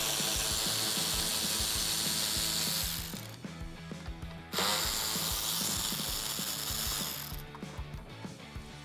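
Cordless electric ratchet spinning a socket on a truck headlight's mounting bolt. It runs in two spells of about three seconds each, stopping briefly about three seconds in.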